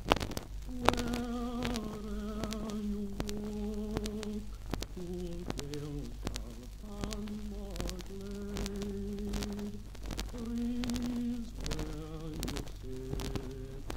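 Playback of a 1952 EMIdisc home recording at 78 rpm: a slow tune of long held notes in short phrases, under thick surface crackle and clicks from the aged disc.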